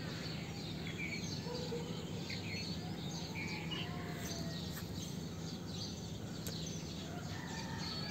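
Birds chirping outdoors: many short, scattered chirps and calls, over a steady low hum.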